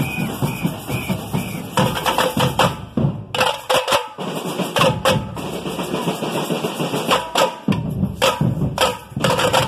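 Samba batería drumming: tamborims struck in fast, tight patterns over the pulsing beat of surdo bass drums. The low drums drop out briefly about three and a half seconds in and again near eight seconds.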